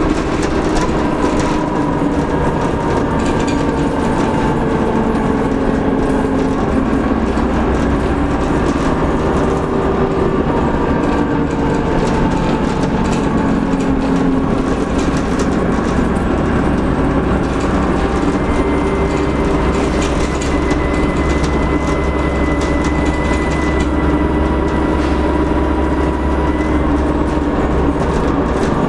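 Dennis Trident double-decker bus's diesel engine running under way, its pitch rising and falling as it pulls and changes gear, with rattles throughout. In the second half a thin, high turbocharger whistle holds for several seconds, then stops.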